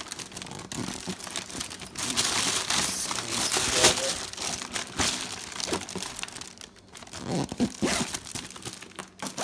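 Carry bag and the rolled-up K2 Explorer inflatable kayak crinkling and rustling as the packed bag is pulled closed and zipped, in irregular scratchy rasps.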